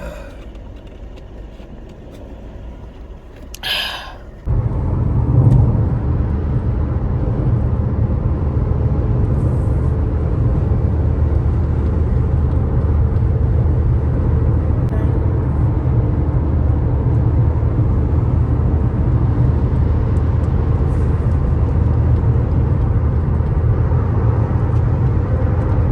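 Car driving, a steady low rumble of engine and road noise that starts abruptly about four seconds in, after a brief hiss.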